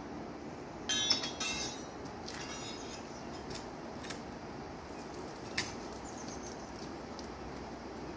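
Steel tongs and crucible clinking and ringing against a home-made refractory foundry as the crucible is lifted out, with a cluster of clinks about a second in and a few single clicks later, over a steady rushing noise.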